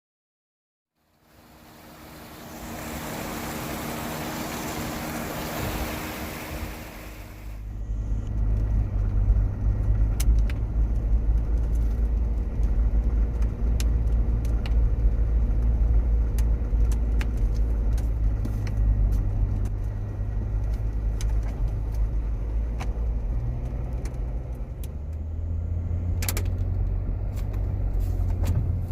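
A car driving, heard from inside the cabin. The sound starts about a second in as a broad hiss, then from about eight seconds in turns to a deep, low rumble with scattered sharp clicks and ticks.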